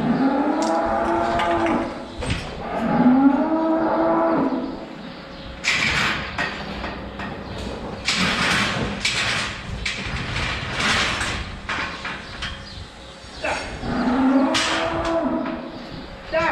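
Cattle mooing: three long calls, near the start, about three seconds in and again near the end, each rising then held. Between the second and third call comes a run of short, noisy bursts.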